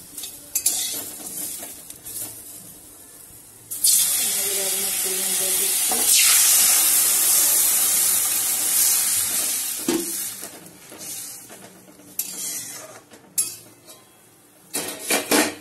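Water poured into a hot metal wok of fried raw mango slices, breaking into a loud sizzling hiss about four seconds in that fades away over the next several seconds. A few sharp knocks near the end.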